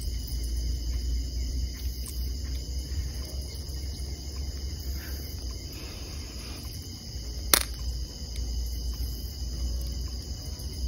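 Crickets chirping steadily in a night insect chorus over a low rumble, with one sharp click a little past the middle.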